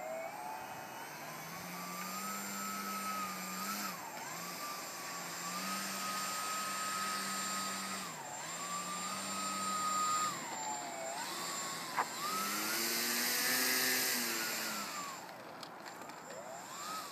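RC model plane's motor and propeller running as it taxis over grass: a steady whine that climbs in pitch at first, then dips and recovers several times as the throttle is eased and reopened. A single sharp click about twelve seconds in.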